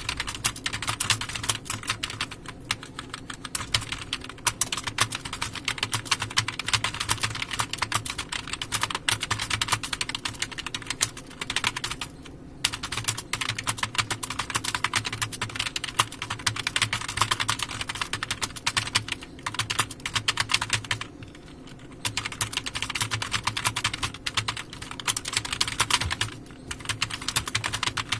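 Fast, continuous typing on a computer keyboard: a dense run of keystrokes, broken by short pauses about twelve seconds in and for about a second around twenty-one seconds in.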